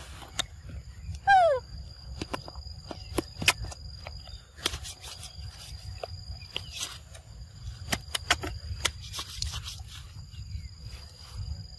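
A young macaque eating fruit up close: many short wet clicks and smacks of chewing and biting, scattered through. About a second in comes a short, loud falling call, and a thin steady high tone runs in the background for long stretches.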